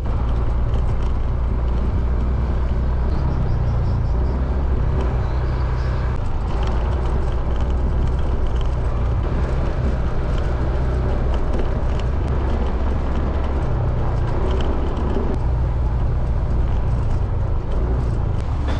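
Motorcycle engine running steadily while riding, with a loud rush of wind over the microphone.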